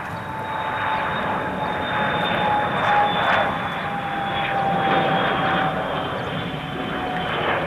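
Tupolev Tu-134's Soloviev D-30 turbofan jet engines running, a rushing noise with a high whine that slides slowly down in pitch as the airliner goes by.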